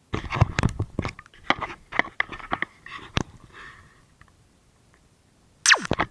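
Handling noise on the model airboat's hull and onboard camera: a quick run of knocks and clicks for about three seconds, then a short sharp sound falling steeply in pitch near the end.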